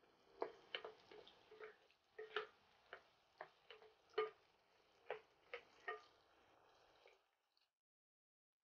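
Wooden spatula tapping and scraping against a nonstick pan as chopped onions are stirred in oil: about fifteen faint, irregular taps, stopping about six seconds in.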